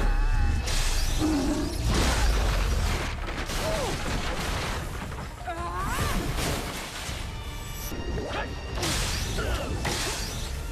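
Animated fight-scene soundtrack: whooshes, crashes and impacts over music, with short cries from the monsters.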